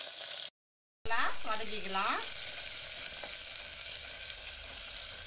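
Sliced onions sizzling in hot ghee in an aluminium pressure cooker, stirred with a wooden spatula. The sizzle drops out completely for about half a second near the start, then carries on steadily.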